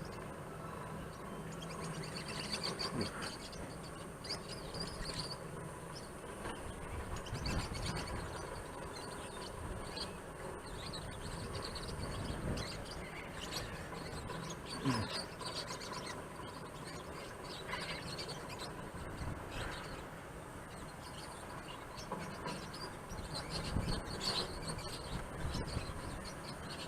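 Birds chirping on and off over a steady high-pitched insect drone and a low rumble.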